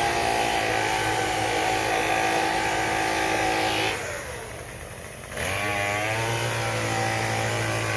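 Handheld leaf blower's small engine running at high throttle. About four seconds in, the throttle is let off and the engine note falls away, then it revs back up to a steady high pitch about a second and a half later.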